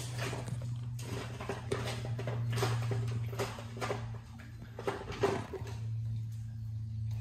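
Mother dog eating turkey from a metal tray: irregular clicks and patter over a steady low hum.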